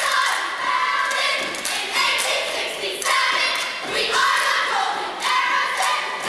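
Step team of women chanting in unison, with stomps on the wooden stage in a steady rhythm of about one phrase a second.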